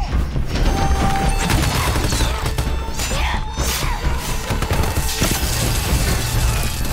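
Dense film action soundtrack: a rapid run of impacts, crashes and splintering over a steady low rumble, with score music underneath.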